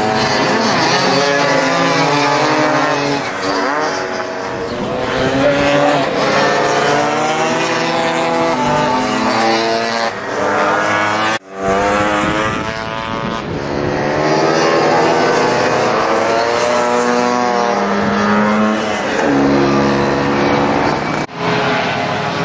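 Several racing scooter engines revving hard and changing gear as they pass, their pitches rising and falling and overlapping. The sound drops out sharply for a moment about halfway through and again near the end.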